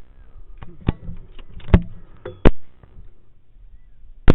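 Rifle shots fired at a running coyote: three loud, sharp reports spread over a few seconds, with a couple of fainter clicks before them.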